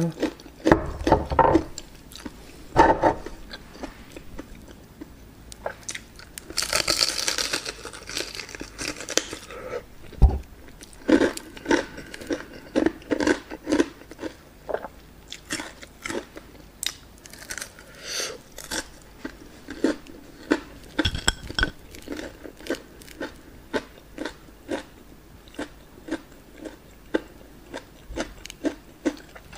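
Close-miked biting and chewing of a crispy breaded fried chicken drumstick: many sharp crunches of the coating, with a longer spell of crunching about seven seconds in and a single low thump about ten seconds in.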